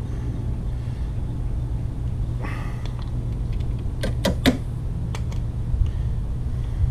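A few light metallic clicks and taps as the mower handle's knob and bolt hardware is worked by hand, in a cluster about four seconds in, over a steady low hum.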